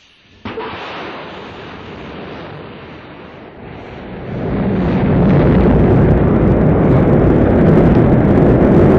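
Rocket launch roar: a sudden hissing rush about half a second in, then a deep rumbling roar of the engines at ignition and liftoff that swells about four seconds in and holds loud.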